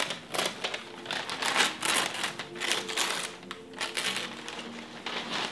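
Gift wrapping paper rustling and crinkling in irregular crackly bursts as a present is unwrapped by hand.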